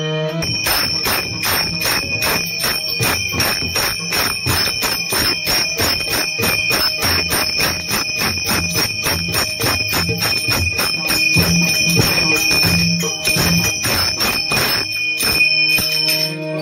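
Pakhawaj drums played fast with small hand cymbals (tal) clashing about four times a second, the cymbals ringing over the beat. The drumming stops about fifteen seconds in and sustained harmonium tones return.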